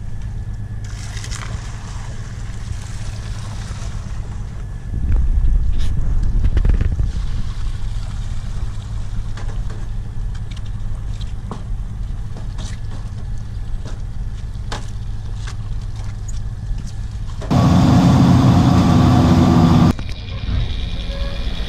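Fishing boat's engine and hydraulic pot hauler running steadily while a crab pot line is hauled up, a low drone. It gets louder about five seconds in and again for about two seconds near the end.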